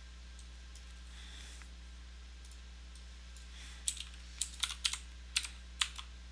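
Computer keyboard typing: a quick run of about nine sharp key clicks starting about four seconds in, over a steady low hum.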